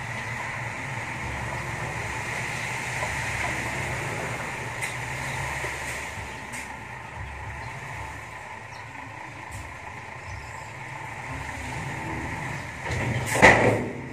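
Dump truck engine running steadily with its tipper bed raised while the load of soil slides out, with a few faint clicks and a loud short burst of noise near the end.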